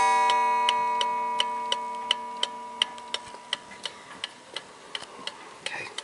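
1881 Ansonia open-escapement mantel clock ticking steadily, a little under three ticks a second, while the mellow ring of its gong stroke fades away over the first four seconds.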